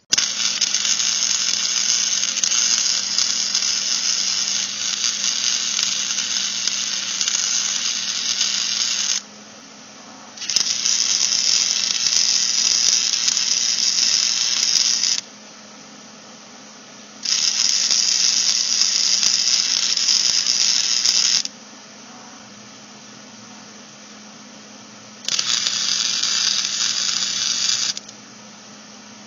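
Electric arc welding on steel in four bursts, about nine, five, four and three seconds long: a loud, even crackling sizzle while the arc burns, stopping sharply between beads. A steady low hum runs underneath throughout.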